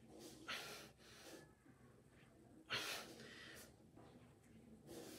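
A man breathing hard from exertion while doing push-ups, with forceful exhales; the two strongest come about half a second in and near three seconds in.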